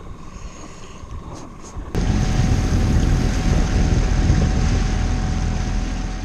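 A small skiff's outboard motor running at speed, with wind and rushing water, cutting in suddenly about two seconds in after a quiet opening.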